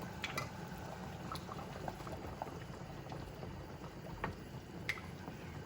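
Pot of beef goulash boiling on high heat while a flour-and-water thickener sets in the sauce: a steady bubbling, with a few short sharp clicks.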